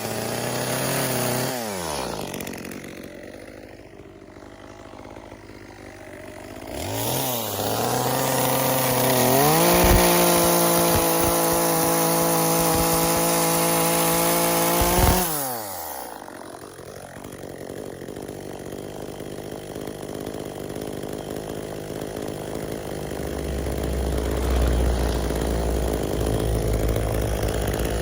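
Small two-stroke top-handle chainsaw carving wood, its engine revving up and down between idle and full throttle. It is held at a steady high pitch for about five seconds in the middle, then drops back to a lower, rougher running sound.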